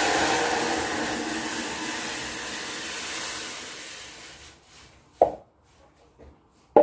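Pot of water at a rolling boil, a loud bubbling hiss that fades away over about four seconds. A sharp clink of metal or glass about five seconds in.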